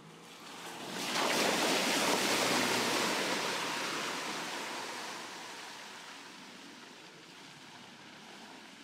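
Mercedes-Benz GLC 300d SUV driving through a muddy puddle: a rush of splashing water and tyre noise that swells about a second in, is loudest for a couple of seconds, then fades slowly as the car drives away.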